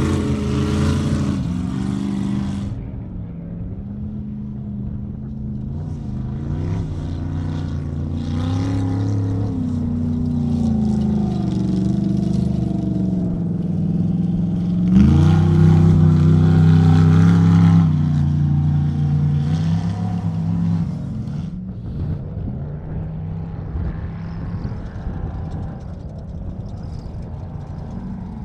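Engines of Ultra 4 off-road race cars running as the cars drive past one after another, rising and falling in pitch as they rev up and ease off. About 15 seconds in, one revs up sharply close by, the loudest part, then eases off a few seconds later; the sound is quieter near the end.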